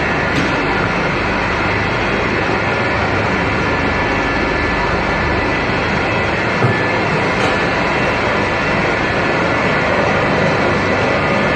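Animal-fat rendering line machinery running: electric motors, gear drives and agitators make a loud, steady, dense mechanical din. One brief knock sounds a little past halfway.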